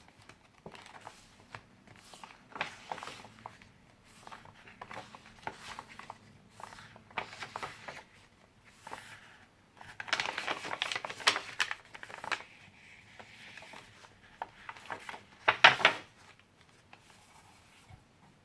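Paper pages of handmade junk journals being turned and handled, rustling and crinkling with irregular soft taps. The loudest rustling comes about ten seconds in, with a sharp burst a few seconds before the end.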